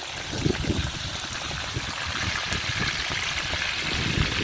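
Fish frying in hot oil in a pot: a steady sizzle with small scattered crackles.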